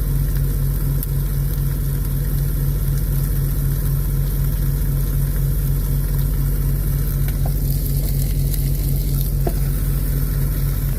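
Burger patty sizzling on a George Foreman contact grill as the grease drips off, over a steady low hum of an idling engine.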